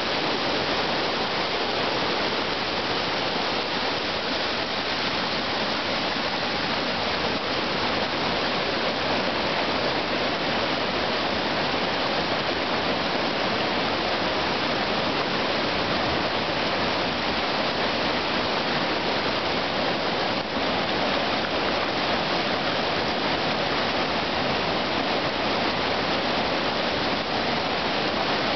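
Whitewater rapids rushing steadily, the churning water of a river hole.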